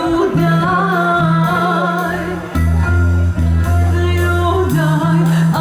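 A live band playing, with a singer's voice carrying a wavering melody over sustained bass notes that change about once a second.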